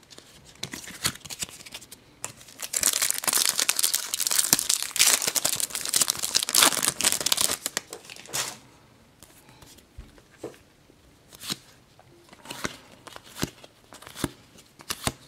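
A Panini Adrenalyn XL trading-card packet torn open and crinkled, starting about two seconds in and lasting about six seconds. After that come light clicks and taps as the cards are flicked through by hand.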